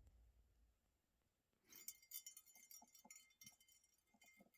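Faint metallic jingling and clinking: a quick run of light clinks from about two seconds in, lasting under two seconds, with a couple more near the end.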